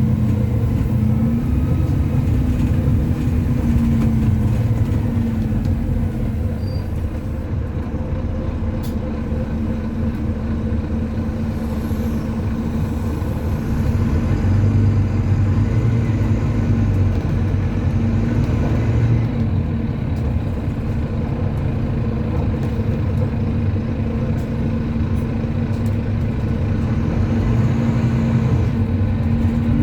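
Interior sound of a Volvo B9TL double-decker bus under way: the diesel engine drones steadily, with a steady whine whose pitch wavers a little and a low rumble that swells and eases.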